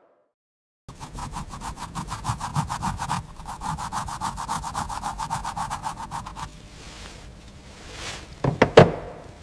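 Rapid back-and-forth rubbing or scraping strokes on a surface, about seven strokes a second. They start about a second in, go fainter partway through, and are followed near the end by two quick whooshes.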